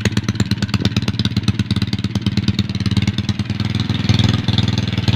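Honda XRM 125's single-cylinder four-stroke engine, bored out to a 62 mm cylinder, idling through a Daeng aftermarket exhaust pipe. It gives a steady, rapid exhaust pulse that holds its pitch.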